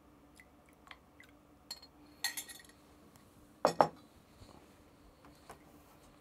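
Glassware clinking and knocking on a hard surface: a few light taps, a ringing clink about two seconds in, then a louder double knock a little later.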